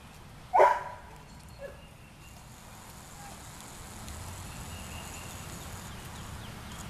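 Footsteps of a person and a Siberian husky walking together on a concrete path, with a short sharp call about half a second in.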